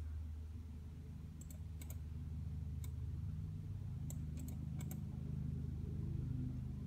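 Sharp clicks from working a laptop, about nine in all, several in quick pairs, over a steady low hum.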